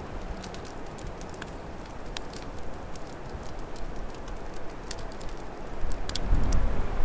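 Open wood fire crackling in a fireplace, with sharp irregular pops over a steady rush of wind. Near the end a deep gust of storm wind swells up and grows louder.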